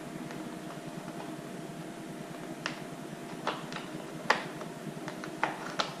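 A handful of short, sharp clicks and taps of hard plastic parts being handled and fitted on a snowmobile's body panels, scattered through the second half, the loudest a little past four seconds in. A steady hum runs underneath.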